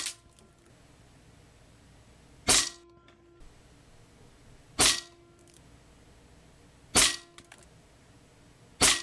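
Crosman Challenger .177 regulated PCP air rifle firing four shots about two seconds apart, each a sharp crack followed by a brief faint ring. The tail of a previous shot is heard at the very start.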